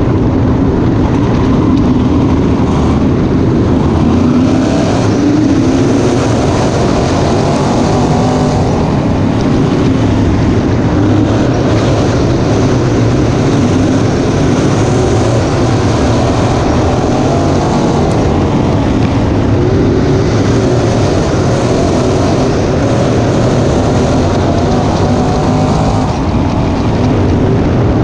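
Crate late model race cars' V8 engines running at racing speed on a dirt track, a loud, unbroken engine noise whose note wavers up and down.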